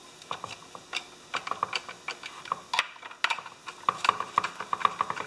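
Screwdriver turning screws into a chainsaw's carburetor and intake block: a run of small, quick clicks, coming faster and closer together in the last second or so.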